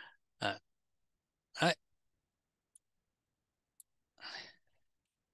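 A man breathing and sighing close to the microphone, short breathy sounds with one brief voiced sigh, and two faint mouse clicks about a second apart in the middle.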